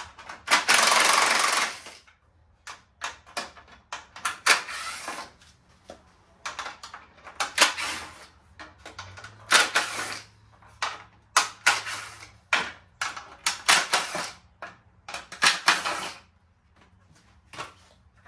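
Cordless Ryobi power driver running in short bursts, one of about a second and a half near the start and then many quick spurts, backing out the bolts that hold a truck grille's insert.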